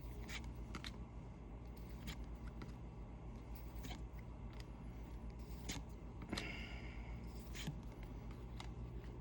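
Baseball trading cards being handled: faint scattered clicks and rustles of cards slid and flipped, with a slightly longer rustle about six and a half seconds in, over a low steady hum.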